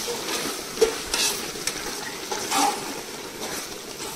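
A metal spoon stirring a vegetable curry in a large metal cooking pot, scraping against the pot a few times over the steady sizzle of the cooking food.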